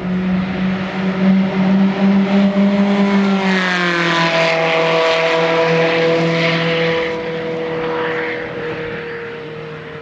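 Ferrari sports car's engine passing at speed: a steady engine note that drops in pitch about three and a half seconds in as the car goes by, then fades as the car pulls away.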